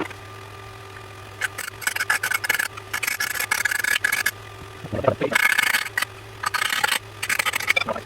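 Repeated rubbing and scraping strokes in bouts of about a second each, over a steady low hum.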